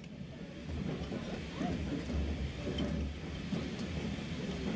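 Low rumble and clatter of a railway carriage running along the track, heard from inside the coach, with faint chatter of other passengers.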